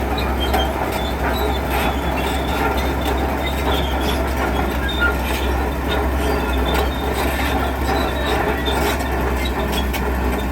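A tracked construction machine running: a steady, heavy diesel rumble with the steel tracks clanking and squealing as it moves.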